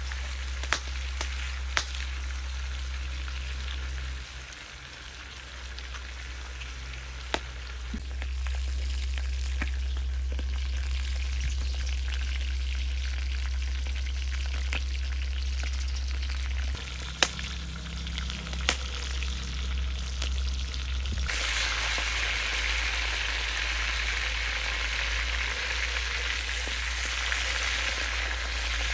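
Meat frying and sizzling steadily in a cauldron over a wood fire, with a few sharp clicks along the way. The sizzle grows louder about three-quarters of the way through.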